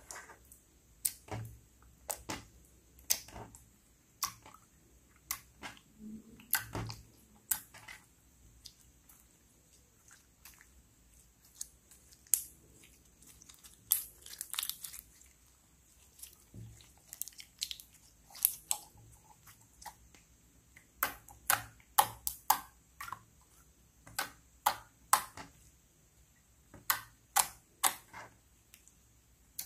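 Clear glitter slime being folded, stretched and pressed by hand, making irregular sticky clicks and pops that come in clusters, with short quieter gaps between.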